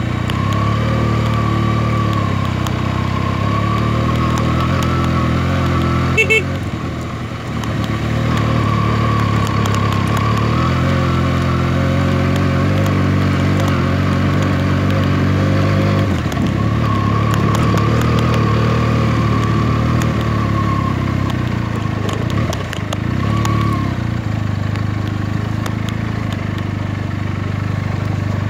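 Benelli TNT 300's parallel-twin engine running at steady revs while riding a dirt road. The engine note dips briefly twice in the second half, and there is one short sharp sound about six seconds in.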